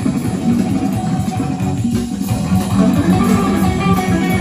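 Music with guitar and bass, played loud through a Sansui 9090 receiver and Celestion Ditton 442 loudspeakers and picked up in the listening room.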